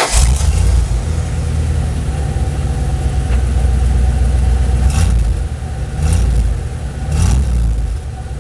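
Ford F-350 truck engine running just after starting, heard at its newly fitted muffler and turned-down tailpipe, with a steady low rumble. Three short revs come in the second half.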